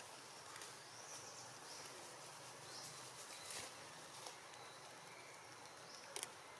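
Faint outdoor ambience: a quiet background hiss with a few faint, short high chirps, and two quick clicks close together about six seconds in.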